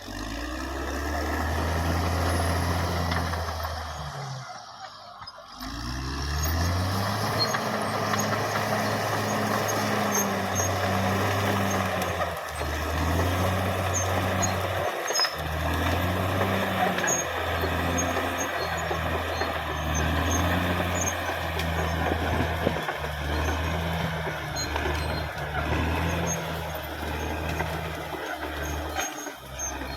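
Caterpillar D6R XL bulldozer's diesel engine running hard, a deep steady drone. It dips and recovers about four seconds in and several more times as the load on the machine changes.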